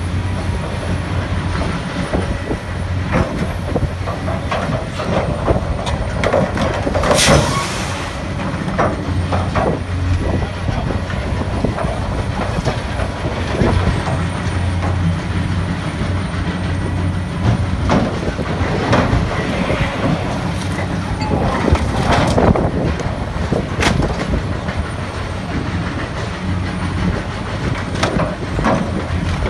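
Cat S3090 hydraulic demolition shear on a Cat 345C excavator cutting and tearing scrap steel, with sharp metal cracks, clanks and grinding at irregular moments over the excavator's steady diesel engine. The loudest crack comes about seven seconds in, with another strong one a little past twenty-two seconds.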